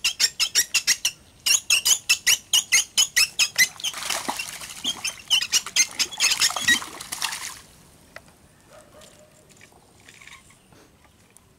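A hooked fish thrashing and splashing at the pond's surface for about four seconds, preceded by a rapid run of sharp chirps, about seven a second. It goes much quieter as the fish is lifted clear of the water.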